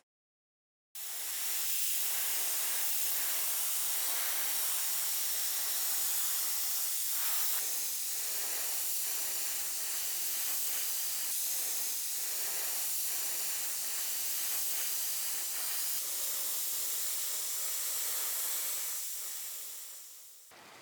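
Steady hiss of a spray nozzle spraying, as in spray-painting, starting about a second in and fading out near the end.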